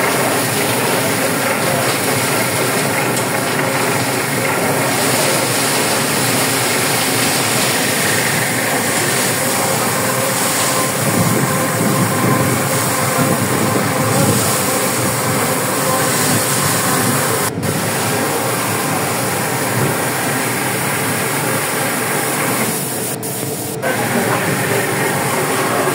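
Fishing vessel's engines and deck machinery running steadily and loudly, with a hissing rush over the top, while tuna are brailed from the net into the hold.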